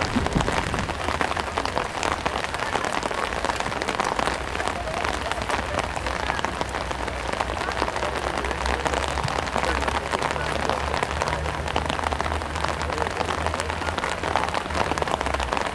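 Steady, dense patter of rain on a surface, with a low rumble underneath that grows stronger about halfway through.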